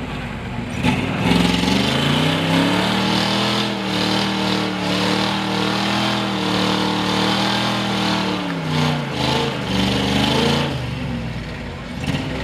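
Ford short-bed pickup's six-cylinder engine revving under load as the truck churns slowly through deep mud. The revs climb in the first couple of seconds, hold high for several seconds, then fall away, surge briefly and drop near the end.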